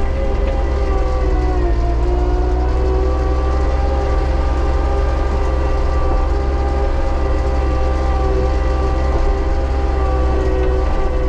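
Diesel engine of a small Bobcat machine running steadily under throttle, a loud drone whose pitch dips slightly about two seconds in and then settles back.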